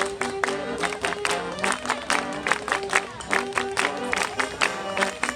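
Marching band playing a tune: held melody notes over a busy beat of quick, sharp drum hits.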